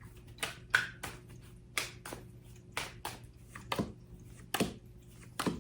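Tarot cards being handled and drawn: a series of irregular sharp clicks and taps, about a dozen, as the cards are snapped and laid down, over a faint steady hum.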